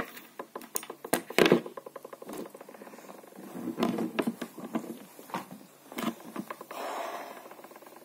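A string of clicks, knocks and scraping from handling and movement close to the microphone, with the loudest knocks in the first two seconds and the sounds fading toward the end.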